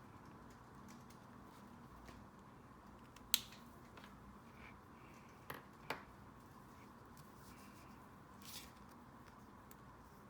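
A few sharp clicks and taps from handling a paper journal and stationery, one loud click followed by two close together, then a brief soft rustle, over faint steady room hum.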